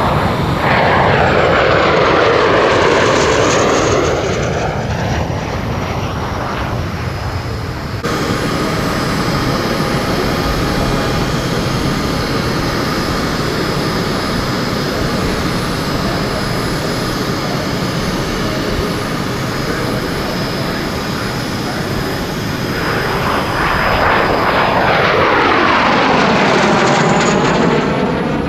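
CAC Sabre's Rolls-Royce Avon turbojet making a loud close pass, its noise sweeping and phasing as it goes by. About eight seconds in the sound changes abruptly to steadier, fainter jet noise from the distant aircraft. Near the end it swells again into another close, sweeping pass.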